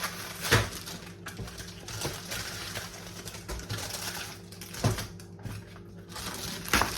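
Handling noise of things being moved about: light rustling with a few sharp clicks or knocks, over a steady low hum.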